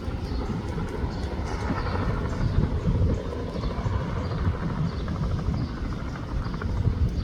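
Bell 206 helicopter with its rotor and turbine running, heard as a loud, steady rumble heavy in the low end.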